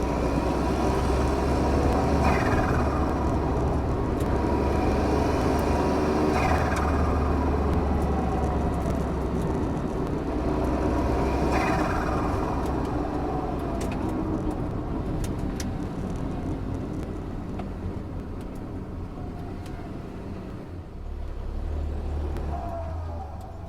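Turbocharged engine running under throttle. Three times its turbo whistle falls away as the throttle is lifted, with the hiss of the blow-off valve and the atmospheric wastegate venting. The engine note eases off toward the end.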